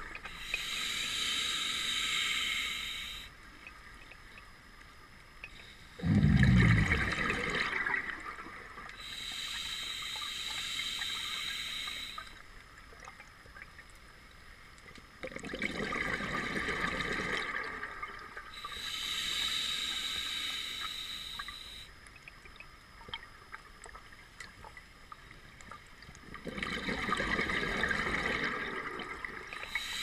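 Scuba diver breathing on an open-circuit regulator: a hissing inhale through the regulator, then a burst of bubbling exhaust bubbles. The cycle repeats about every ten seconds, three full breaths, and the first exhale is the loudest.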